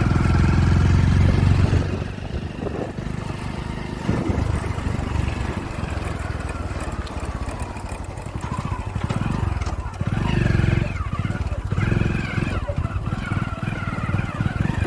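Motorcycle engine running while being ridden, loud for the first couple of seconds, then easing off to a lower steady run, with two brief swells of throttle in the second half.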